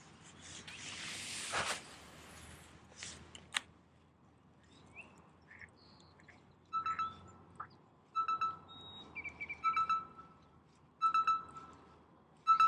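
Quantum Energy PT baitcasting reel being cranked in short spurts about a second and a half apart, each spurt a rapid whirring rattle with a steady ring, as a shallow-running crankbait is worked back in a stop-and-go retrieve. A brief rushing hiss sounds about a second and a half in.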